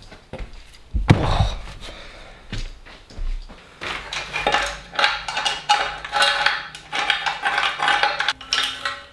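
Metal parts of a 1969 Porsche 911T engine clinking and knocking as they are handled and lifted off the engine, with a heavier knock about a second in and denser clatter in the second half. Music plays underneath.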